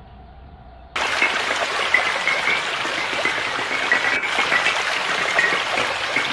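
A faint low hum, then about a second in a loud, steady rushing hiss starts abruptly, like water gushing or spraying.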